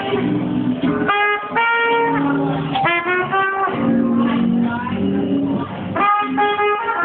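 Instrumental music with held notes changing in pitch every half second or so.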